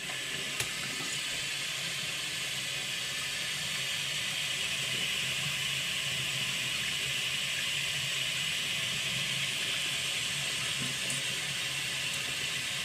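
Water running in a steady, even stream for the whole stretch, with one short click about half a second in.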